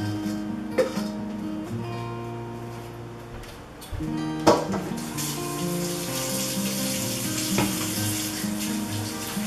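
Background music throughout. About halfway through there is a sharp clatter, then a kitchen faucet starts running water into the sink and keeps running.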